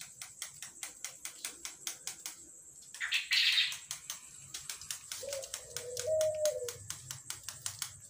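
Electric soldering iron tips dabbed rapidly onto coloured plastic sheet, spot-welding the pattern onto a kite sail: quick light taps, several a second, with a brief hiss about three seconds in and a short wavering tone around the middle.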